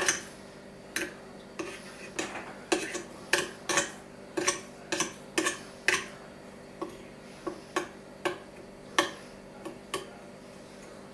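Metal measuring scoop clicking and tapping against the sugar spinner head of a tabletop candyfloss machine as sugar is tipped in: sharp, irregular clicks about one or two a second, over a faint steady hum.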